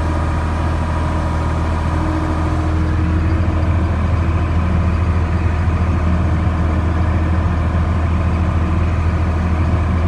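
Case 5140 Maxxum tractor's diesel engine running steadily, heard from inside its cab, getting slightly louder about three seconds in.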